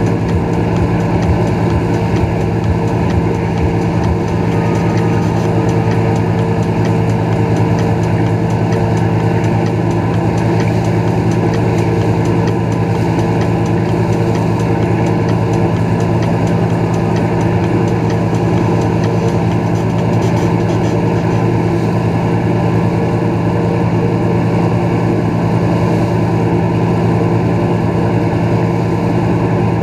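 Moomba XLV wake boat's inboard engine running at a steady towing speed, one constant drone with no change in pitch, over the rush of the churning wake.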